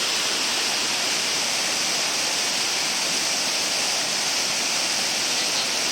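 Siffleur Falls, a powerful waterfall on the Siffleur River, pouring: a loud, steady rush of water.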